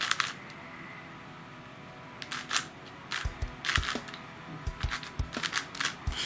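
A MoYu AoShi GTS M 6x6 magnetic speed cube being turned by hand: sharp plastic clicks as the layers turn and snap into place on its strong magnets, a quieter stretch near the start, then about one or two clicks a second.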